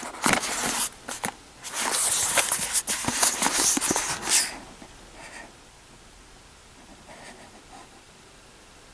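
Small cardboard retail box handled and turned in the hands: fingers rubbing and sliding over the card, with a few clicks and taps. It stops about four and a half seconds in, leaving only a few faint rustles.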